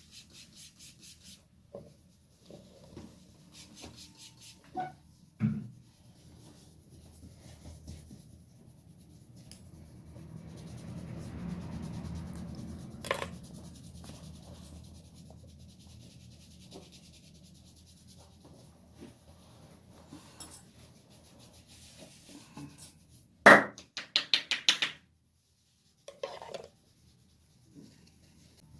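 Hands rubbing and kneading a scalp and hair during a head massage, with scattered light pats. A little past twenty seconds in comes a quick run of loud hand strikes on the head, about ten in a second and a half.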